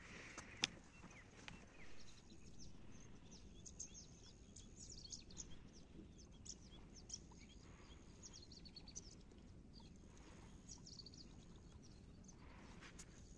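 Faint outdoor ambience with short, high bird chirps scattered through, thickest in the middle, and one sharp click about half a second in.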